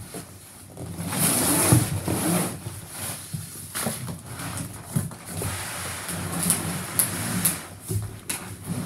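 Cardboard shipping packaging being handled: rustling and scraping with scattered knocks, loudest about a second in.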